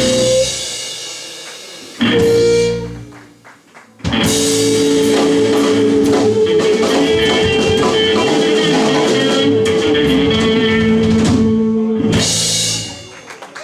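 Live band with two electric guitars, drum kit and harmonica ending a song: two short stop hits about two seconds apart, then a long held closing chord from about four seconds in, the harmonica sustaining one wavering note over the guitars while the drums and cymbals keep crashing, cut off about twelve seconds in and ringing out.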